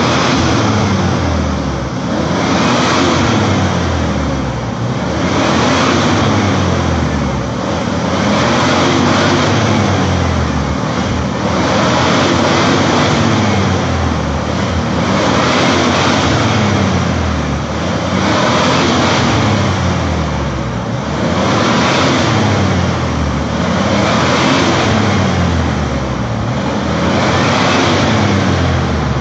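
Jeep Wrangler TJ engine revving up and down over and over, about once every two and a half seconds, under load off-road.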